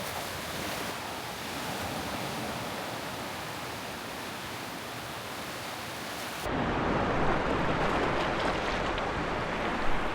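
Sea waves washing onto a rocky shore, a steady hiss of surf. About two-thirds of the way in, the sound changes suddenly to a duller wash with a low rumble of wind on the microphone, and there is a brief knock near the end.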